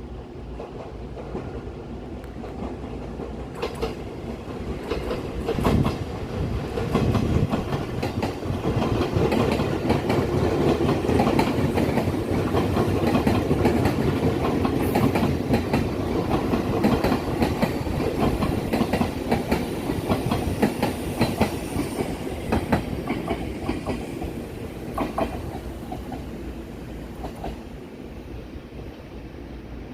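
Alishan Forest Railway train running on the narrow-gauge line, a rumbling noise with wheels clicking over the rail joints; it grows louder towards the middle and fades towards the end.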